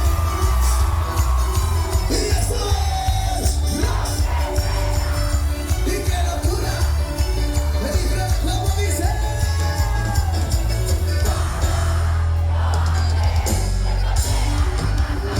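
A live band playing with a singer over a heavy bass, with shouts and whoops from the crowd.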